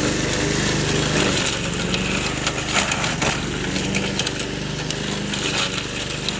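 Toro commercial walk-behind mower's 5 HP Suzuki engine running under load while cutting dry grass and brush, its note dipping and picking back up now and then. Sharp clicks of sticks and debris hitting the blade and deck come through in between.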